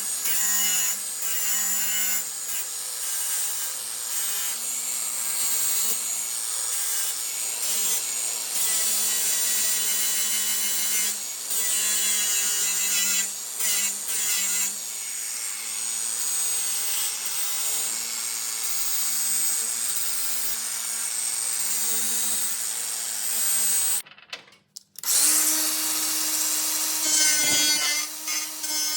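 Hand-held electric power tool running under load: a steady motor hum with a harsh scraping, cutting noise. It stops about 24 seconds in and starts again running at a higher speed.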